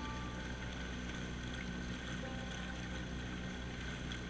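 Small aluminium boat under way, heard faintly: a steady low motor hum with water rushing along the hull.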